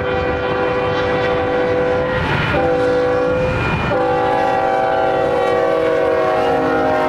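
Diesel freight locomotive's multi-chime air horn sounding a series of blasts, broken briefly about two and a half and four seconds in, then held long, its chord shifting lower near the end, over the rumble of the approaching train.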